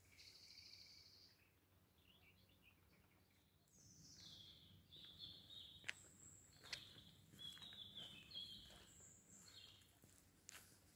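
Faint birdsong in open countryside: several birds give high chirps, trills and whistles that slide downward, busiest in the second half, with a couple of faint ticks a little after the middle.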